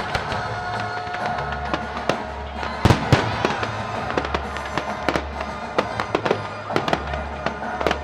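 Fireworks going off, a rapid string of bangs and crackles with the loudest burst about three seconds in, over background music.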